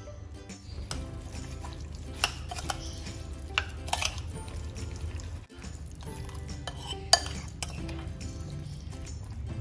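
A metal fork stirring sliced raw beef and onions in a sauce marinade in a ceramic bowl, with about four sharp clinks of the fork against the bowl.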